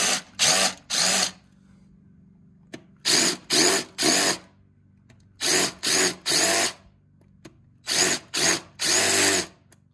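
Cordless drill run in short trigger bursts, three quick runs at a time, four times over: a 3/8-inch bit turning in reverse scores the edges of freshly drilled screw holes in the boat's gelcoat, a light chamfer that keeps spider cracks from spreading out of the holes.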